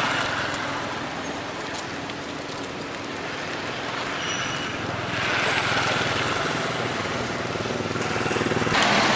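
Steady motor-vehicle traffic noise with a low engine drone, swelling louder about five seconds in and again near the end. A few faint short high squeaks come through around four to seven seconds in.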